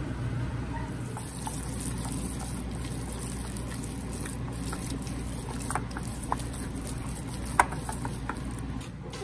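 Hands kneading ground meat and green onion in a glass bowl: soft, wet squishing and patting with scattered small clicks, one sharper click about three-quarters of the way through, over a steady low hum.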